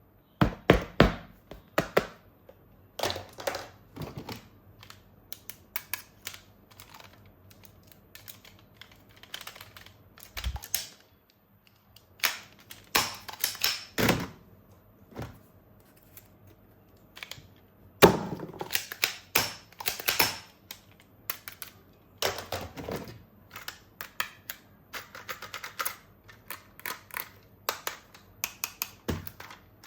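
Hard plastic toy parts being handled: irregular clicks, taps and knocks, in clusters with short gaps. The loudest knocks come about a second in and about eighteen seconds in.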